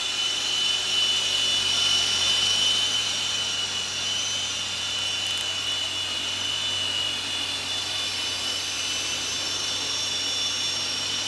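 Esky Big Lama coaxial electric RC helicopter in flight: a steady high-pitched whine from its motors and rotors, a little louder in the first few seconds.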